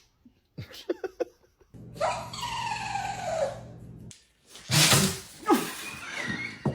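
A dog sneezing twice in quick succession, two short sharp bursts. Before them comes a drawn-out cry that falls in pitch.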